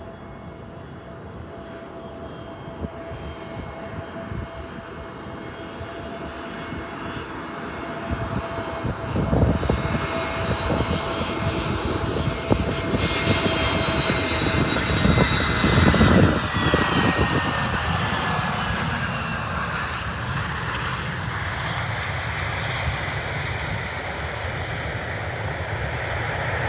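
Jet engines of an arriving Airbus A320 airliner passing by, growing louder to a peak about two-thirds of the way through. A whine falls in pitch as it goes past, then the sound settles to a steady lower rumble.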